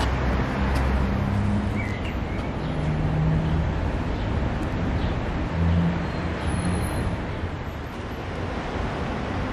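Steady rumble of distant road traffic, with a low engine hum drifting in and out.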